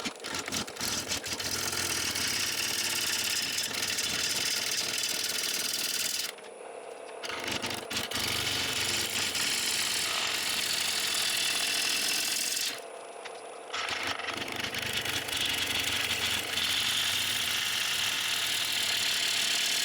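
Gouge cutting a green sycamore bowl blank spinning on a wood lathe: a loud, rattling, scraping cut in three long passes, with two short pauses about six and thirteen seconds in.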